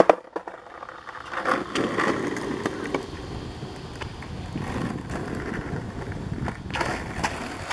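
Skateboard wheels rolling over a concrete path: a steady rumble after a few clicks and knocks near the start.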